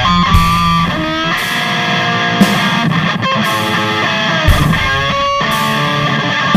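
Rock instrumental: electric guitar playing held, bending notes over drums, with a cymbal crash about once a second.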